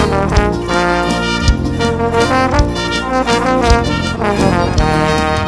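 Live dance band playing an instrumental passage with no singing: a brass-sounding lead melody over a steady drum beat.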